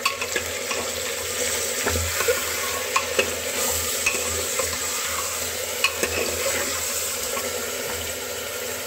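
Chunks of meat sizzling as they fry in hot oil in a pressure cooker, at the start of browning. A metal spoon stirs them and now and then scrapes and clicks against the pot.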